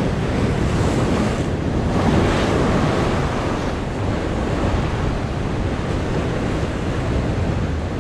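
Ocean surf washing and breaking in the rocks below, a continuous rush that swells slightly louder about two seconds in, with wind buffeting the microphone.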